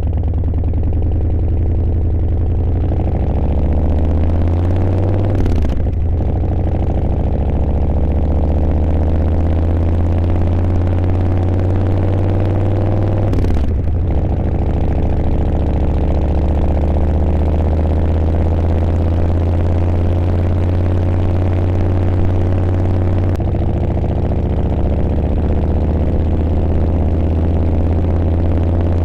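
Harley-Davidson V-twin motorcycle engine running under way, its pitch climbing steadily as it accelerates, with two brief drops about 6 and 14 seconds in as it shifts up a gear.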